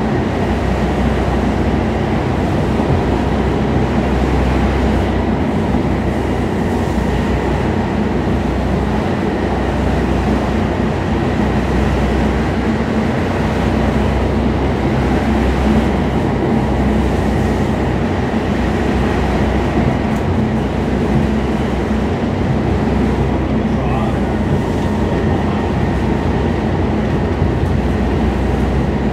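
Stockholm Metro C14 subway car running steadily, heard from inside the passenger cabin: a continuous deep rumble of wheels and running gear, with a faint steady whine over it.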